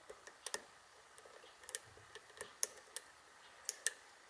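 Small, sharp metallic clicks from a lock pick working the pins of a Buffo pin-tumbler cylinder under very light tension. The pins are ones the picker takes for serrated spool pins. About eight ticks come at irregular intervals, some in quick pairs.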